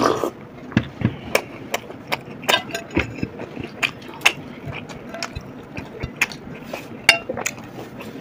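Close-up eating sounds of people chewing kebab: irregular sharp clicks and smacks, with a louder drink from a glass mug right at the start.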